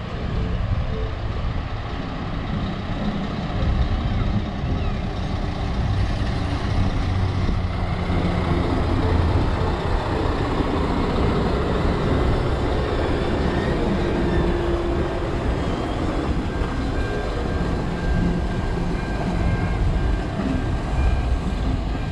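Railway locomotives of a heritage train, a steam engine and a diesel, running steadily: a continuous low rumble with hiss above it and a few faint held tones.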